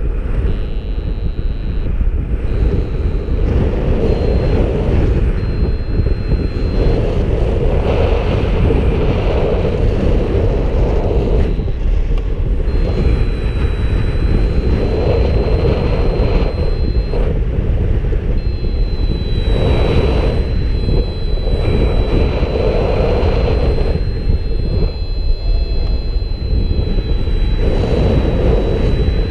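Wind rushing over the camera microphone of a paraglider in flight: a loud, steady rush that swells and eases every few seconds. A thin high steady tone sounds on and off above it.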